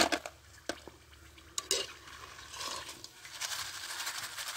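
A metal skimmer and fork clink a few times against the pot and plate as fried banana chips are scraped off, then hot oil sizzles steadily as the skimmer is worked through the frying pot, starting about halfway.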